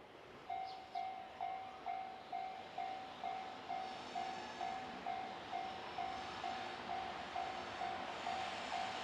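Japanese level crossing warning bell starts ringing about half a second in, a steady pitched ding repeating a little over twice a second. It signals that a train is approaching.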